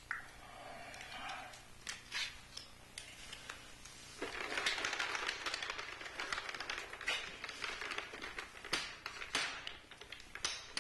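Checkers pieces clicking and clattering on a checkerboard as they are handled and set out. A few separate clicks are followed, from about four seconds in, by a dense run of rattling clicks.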